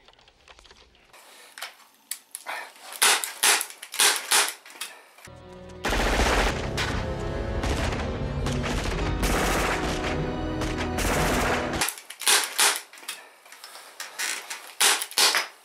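Gunfire: separate shots at first, then about six seconds of continuous rapid automatic fire, then more scattered shots near the end.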